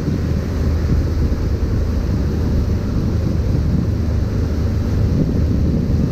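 Wind buffeting the microphone aboard a moving wakesurf boat, a steady low rumble with the boat's engine droning underneath.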